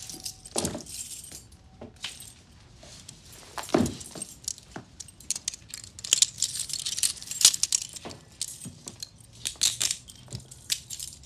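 Metal handcuffs clinking and clicking as they are handled and closed around a pair of wrists: a run of sharp metallic jingles and clicks, with a couple of duller thumps.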